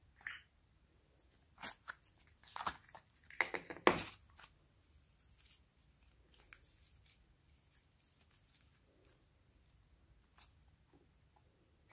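Soft clay-mixed slime being stretched and folded by hand, giving sticky clicks and small pops, busiest in the first four seconds and then only a few.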